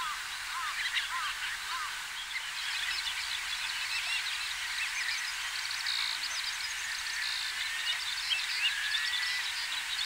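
A flock of lesser sand plovers and other shorebirds calling, with many short overlapping chirps and trills.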